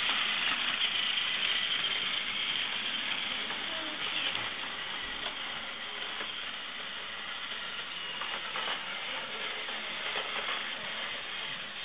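Battery-powered motorised Thomas & Friends toy engines running on plastic track, their small geared motors whirring; loudest in the first few seconds as an engine runs close by, then lower and steady.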